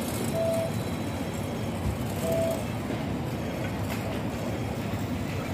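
Hong Kong double-decker tram running, a steady rumble heard from on board, with two short beeps about two seconds apart.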